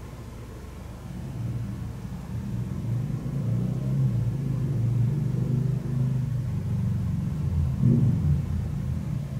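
A low rumbling hum that swells about a second in and then holds steady.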